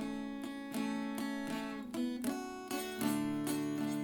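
Background music: acoustic guitar picking a slow run of notes, with a deeper bass note joining about three seconds in.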